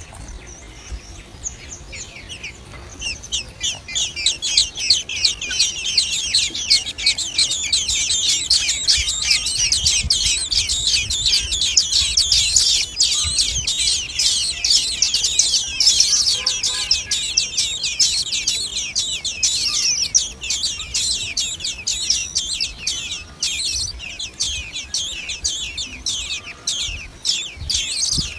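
Common blackbird nestlings begging: a dense, continuous chorus of quick, high-pitched chirps that builds after a couple of seconds and is loudest through the middle before thinning out near the end.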